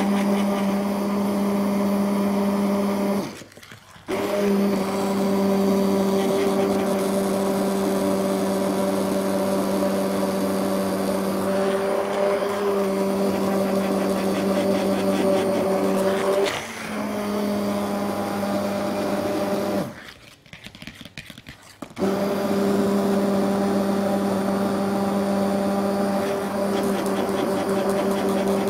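Electric stick (immersion) blender running in a stainless steel pan of soup, puréeing it smooth: a steady motor hum that cuts out briefly about three seconds in and again for about two seconds around twenty seconds in, then starts again.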